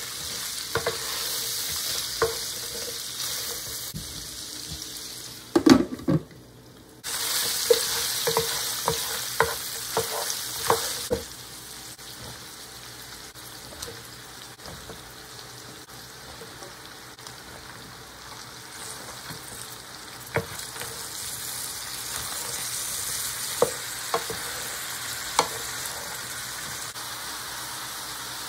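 Diced lamb and onions sizzling in an electric skillet while a wooden spoon stirs and knocks against the pan. There is a loud knock about six seconds in, then a second of near silence. After that the sizzle is quieter and steady, with only an occasional knock.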